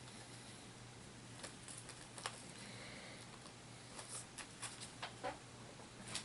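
Faint, scattered light clicks and taps of hands handling small plastic miniatures and booster packaging, a few clicks spread over several seconds.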